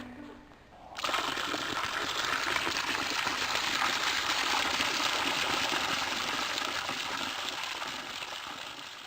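Steady rush of running water that starts suddenly about a second in and fades away near the end.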